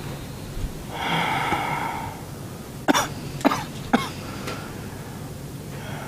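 A person lets out a long breathy exhale, then gives three short coughs about half a second apart. The healer takes the coughing for the body's reaction to energy shifting.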